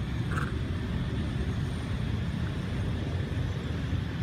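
Steady low outdoor rumble of background noise, with a faint thin high tone above it and a brief faint chirp about half a second in.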